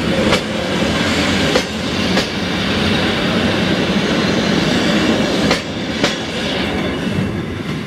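PKP Intercity passenger coaches rolling past at speed, their wheelsets clacking over rail joints in pairs of sharp clicks over a steady rumble. The noise dies away near the end as the last coach goes by.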